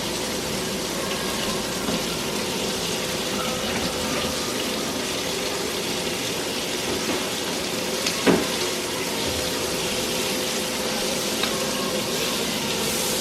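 Food sizzling steadily in a frying pan, with a single knock about eight seconds in.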